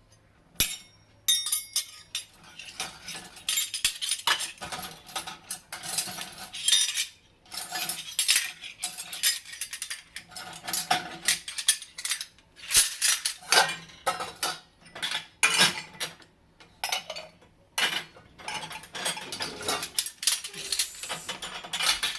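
Washed dishes and utensils clinking and clattering irregularly as they are handled and lifted out of a dishwasher rack.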